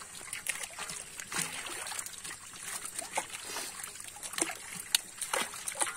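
A heap of small live fish flapping and splashing in shallow water as hands grab and sort through them: many short, irregular wet slaps and splashes.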